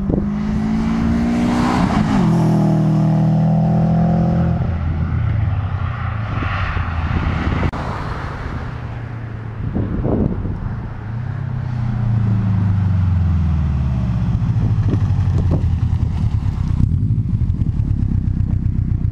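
2005 Subaru WRX's turbocharged flat-four running through an aftermarket SR*S catback exhaust. The engine note rises under acceleration, swings down sharply about two seconds in and holds before fading. Later it falls again in pitch as the car slows, then settles into a steady low rumble.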